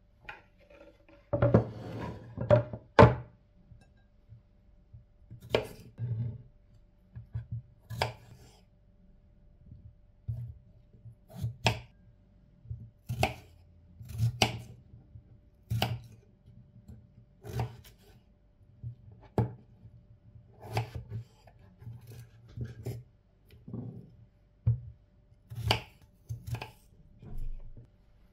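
Kitchen knife cutting peeled potatoes into chunks on a wooden cutting board, each cut ending in a sharp knock of the blade on the wood, one every second or two. A cluster of louder knocks and clatter comes about two seconds in.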